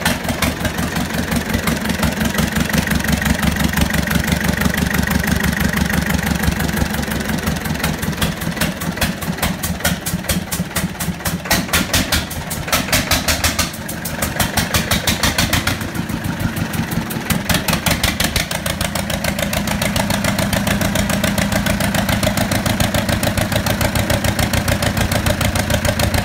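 Zetor 2023 tractor diesel engine running with an even, rhythmic knock of firing strokes, its speed rising and falling a few times midway before it settles into a steady idle. The engine is running for the first time in years of standing.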